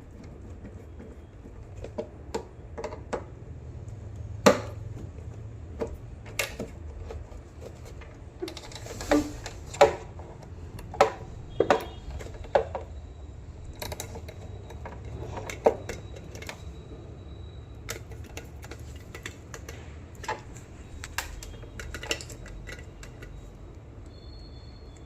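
Irregular sharp clicks and knocks of small tools and hard parts being handled during repair work, a couple of dozen scattered taps with the busiest stretch in the middle, over a low steady hum.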